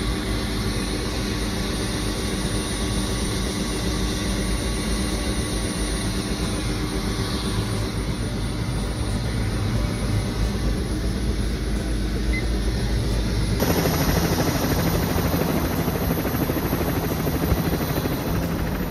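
Helicopter engine and rotor running steadily, heard from on board. The sound changes abruptly about fourteen seconds in, becoming louder with a steady low hum.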